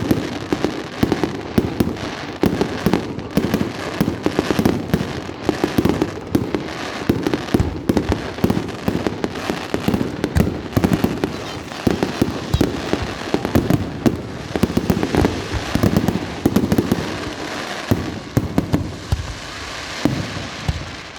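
Fireworks going off in a dense, continuous run of rapid bangs and crackles.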